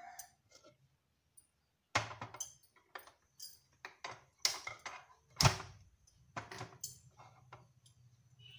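Knocks and clatters of a terracotta clay pot being handled and set on a gas stove's grate, with one heavy thump about halfway through. A faint low steady hum follows it.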